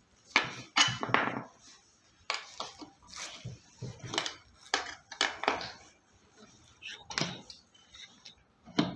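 Irregular knocks and clatter of metal office-chair fittings (the back bracket, screws and Allen key) being handled and set in position, with plastic packing rustling.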